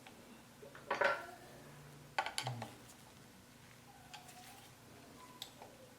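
Light metal clinks and knocks as a small brass-and-aluminium vise stop is handled and set in place: one about a second in and a couple more just after two seconds, with fainter taps later.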